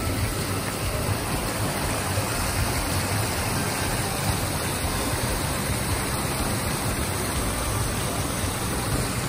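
Stream water rushing steadily over a low stone weir.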